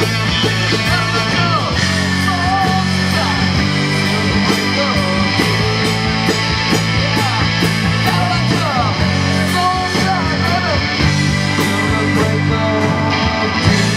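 Live rock band playing: electric guitar, bass and drums keeping a steady beat under sustained chords, with a lead line bending up and down in pitch.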